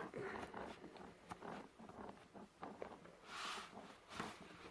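Faint handling noises of hand tools in a tool case: scattered light clicks and a brief rustle about three and a half seconds in.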